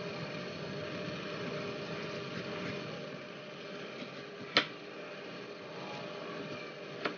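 Kitchen knife shaving the spiny skin off a kamansi (breadnut) fruit, over a steady background hum, with a sharp knock about four and a half seconds in and a lighter one near the end.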